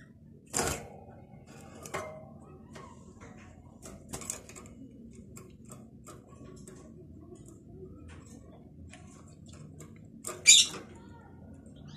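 A caged European goldfinch hopping and fluttering about its cage: a few brief taps and rustles against the perches and wire, the loudest about ten and a half seconds in.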